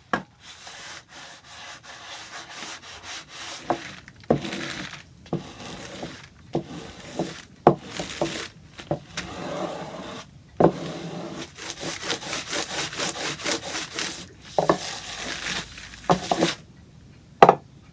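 Repeated rubbing and scraping strokes of a hand tool worked over the wooden clock door, in uneven runs with a few sharp knocks between them.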